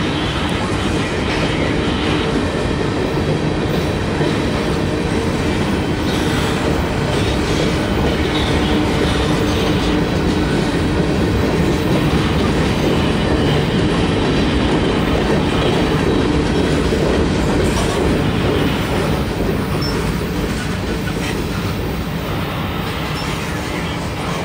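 Freight train's lashup of GE and EMD diesel-electric locomotives running past with a steady engine drone, mixed with wheels clattering and grinding on the rails. The sound swells slightly mid-way and eases off near the end.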